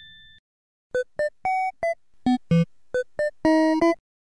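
Short synthesizer keyboard jingle of about ten quick notes, ending on a longer held note and stopping suddenly. It starts after the fading tail of a chime.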